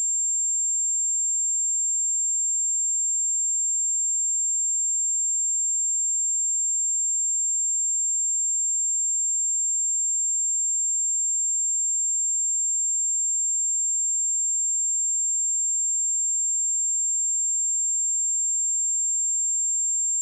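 A pure 7395 Hz sine-wave test tone: one steady, high-pitched whistle-like tone held at a constant level, with no other sound.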